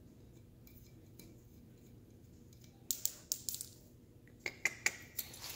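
Digital tyre inflator and its hose chuck being handled: a scatter of sharp small clicks and clatters of hard plastic and metal, starting about three seconds in after a quiet stretch of low room hum.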